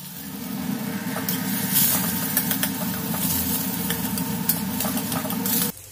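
Metal spatula stirring and scraping mashed potato around a kadai, with a light sizzle of hot oil, over a steady low hum. The sound cuts off suddenly near the end.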